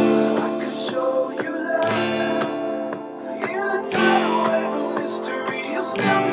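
Acoustic guitar strummed in chords along with a recorded pop song, with strong accents about every two seconds.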